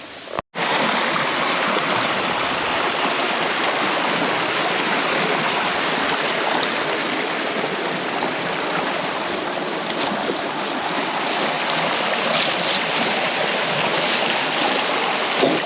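Creek water running steadily, starting abruptly about half a second in.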